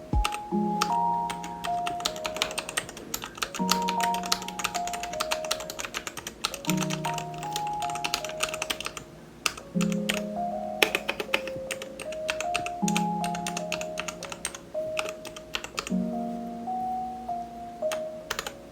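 Keys of a Royal Kludge RK84 mechanical keyboard being pressed in quick, irregular runs of clicks, over background music with a gentle repeating melody.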